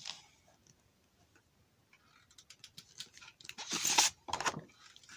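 Pages of a picture book being handled and turned: a run of small clicks and rustles starting about two seconds in, with two louder rustles around four seconds in.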